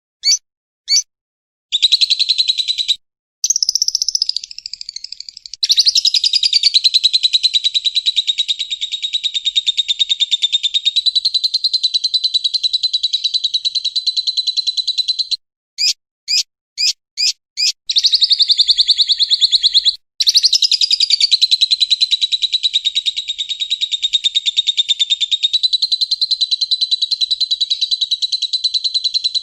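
Lovebird singing its long trilling chatter (the 'ngekek'): very fast, unbroken runs of high chirps. Two long runs of about ten seconds each are separated, about halfway through, by a string of short single chirps.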